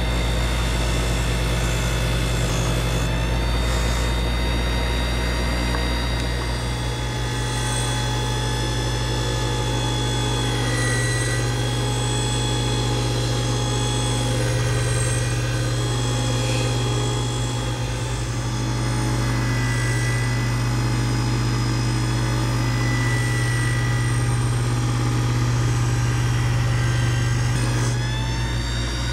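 Bench grinder running with a wire wheel: a steady motor hum, with scratching from old exhaust bolts held against the spinning wire brush at times to clean them.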